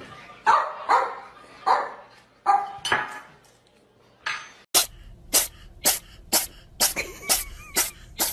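A dog barking, about five short barks in the first three seconds. Then, from about five seconds in, a steady run of sharp clicks or knocks, about two a second.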